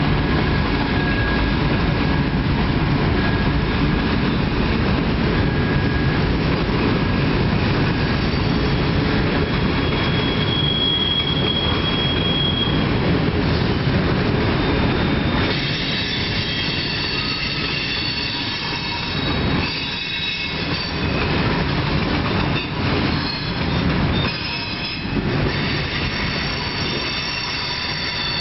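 Long freight train of tank cars and hopper cars rolling past, the wheels rumbling steadily on the rails. High thin wheel squeals ring out now and then, more often in the second half, where the low rumble eases.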